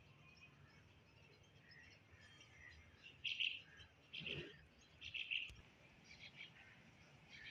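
Birds chirping, with three louder bursts of high chirps in the middle.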